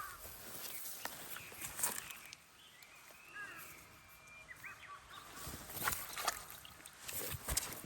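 Rustling and crackling as wetland vegetation is pushed through or handled, in irregular bursts that thin out in the middle and pick up again near the end. A few faint, high chirping calls come during the quieter middle stretch.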